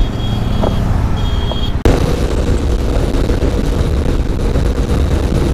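Motorcycle engine idling, then, after a sudden cut about two seconds in, the bike running at highway speed: engine drone under heavy wind rush on a helmet-mounted camera.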